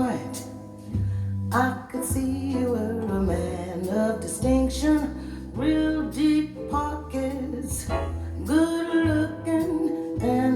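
Recorded song played back on hi-fi loudspeakers: a woman singing over guitar and a deep bass line.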